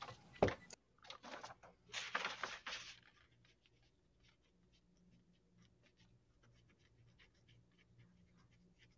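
Faint, irregular light clicks and scratching in a quiet room over a low steady hum, with one sharper click about half a second in and some louder rustling a second or two in.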